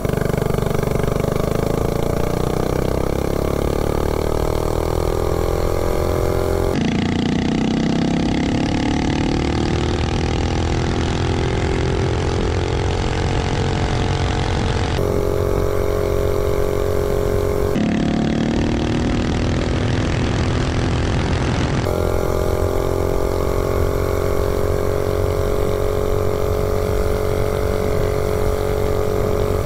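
Predator 212 Hemi single-cylinder four-stroke on a mini bike at full throttle, its pitch climbing a couple of times and then flattening out and holding where the revs stop rising. The rider judges it valve-spring limited. Steady wind noise runs underneath.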